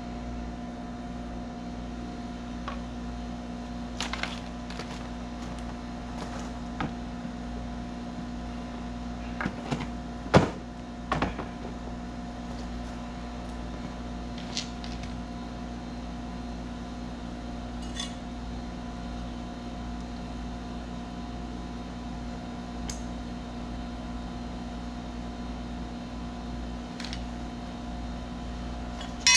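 A steady mechanical hum, over which tools and a length of wooden door trim are handled, giving a few scattered knocks and clatters. The sharpest knock comes about ten seconds in, with a couple more just after.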